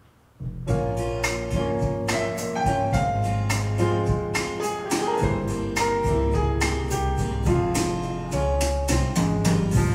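Instrumental intro of a pop song, with piano chords, a strong bass line and drum hits, played on a Bang & Olufsen Beosound A5 wireless speaker; the music starts about half a second in.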